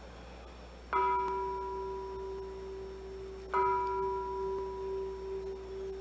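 A meditation bell struck twice, about two and a half seconds apart, each strike ringing on in a long, steady tone with higher overtones; rung to close a silent meditation.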